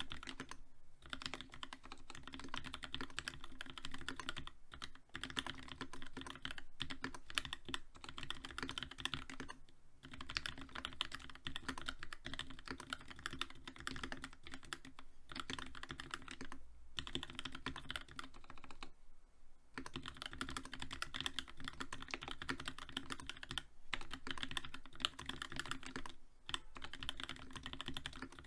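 Fast continuous typing on a TX87 mechanical keyboard with a brass plate, lubed Gateron FEI linear switches with Cherry Black top housings, and GMK ABS keycaps, with no sound dampening. Rapid key clacks with a few brief pauses between bursts.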